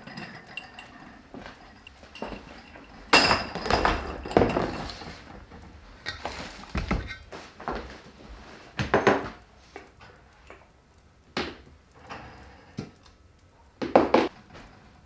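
Kitchenware being handled during cooking: a string of separate clinks and knocks of dishes and utensils, a few seconds apart.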